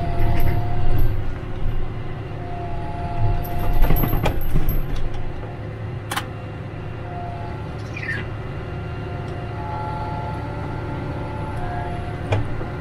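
John Deere tractor engine running steadily, swelling louder near the start and again about four seconds in. A short high whine comes and goes several times, and there is one sharp click about six seconds in.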